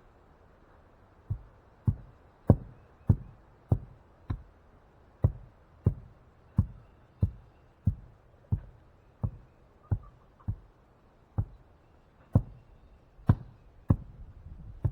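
Repeated heavy knocks of pounding while setting a coop door post in the ground, about one every two-thirds of a second, spacing out near the end.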